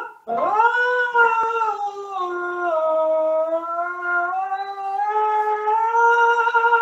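A male voice student singing one long, unbroken vowel in light falsetto-based head voice. He glides slowly down from around high C to a lower note, then climbs back up to the C and holds it, keeping the volume fairly even. It is an exercise for carrying a deep falsetto breath up into a connected high note without pushing louder.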